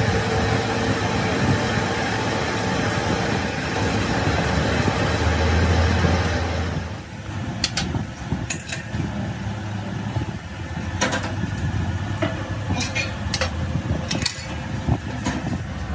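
Metal lathe spinning a truck flywheel as its face is sanded with hand-held abrasive paper: a dense, steady grinding noise. About seven seconds in it drops away, leaving a low hum and scattered sharp metal clanks and taps as the flywheel is handled in the lathe chuck.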